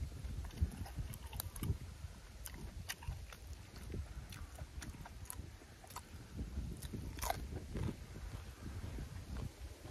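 A man chewing and biting food close to the microphone, crunching raw vegetable dipped in chilli sauce, with sharp crunches scattered irregularly throughout and one strong crunch about seven seconds in.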